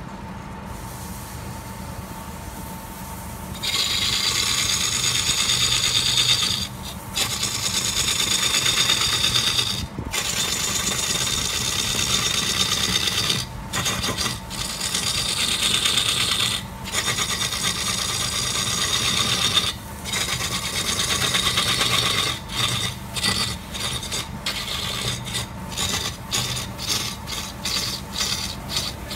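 Wood lathe running with a steady hum while a hand-held turning tool cuts into the spinning log, a loud scraping hiss starting about four seconds in and broken by brief pauses. Toward the end the cuts come as short, quick strokes with frequent gaps.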